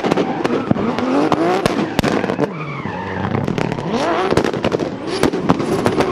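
Turbocharged drift car engine revving hard, its pitch rising and falling over and over, with many sharp pops and bangs from the anti-lag system and tyres squealing through the middle.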